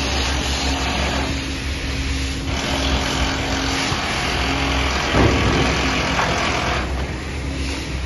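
Heavy machinery engine running steadily against city traffic noise, a low constant rumble and hum, with a brief louder surge about five seconds in.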